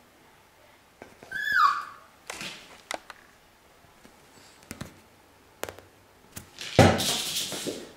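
A Russian toy terrier puppy gives one short, high yelp that slides down in pitch about a second in. Scattered light taps and knocks follow, then a louder scuffling noise near the end.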